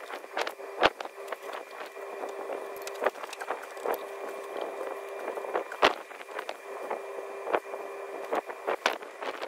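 Irregular sharp metallic clicks and knocks as a tight diesel fuel injector is worked back and forth with a bar and by hand to free it from a 1.6 TDI cylinder head, over a steady faint hum.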